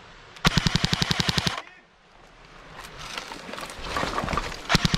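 Airsoft rifle firing on full auto: a burst of about a second of rapid, evenly spaced shots, roughly fifteen a second, then a second burst starting near the end. In between, branches and clothing rustle as the shooter pushes through brush.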